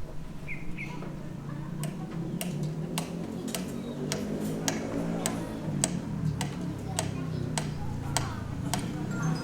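Sharp, regular taps, about one every 0.6 seconds, over a steady low hum.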